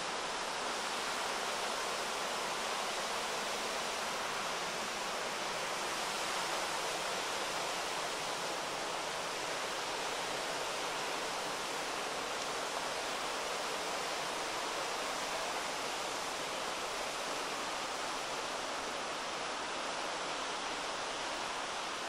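Mountain river flowing over rocks in a gorge: a steady, even rushing and murmuring of water.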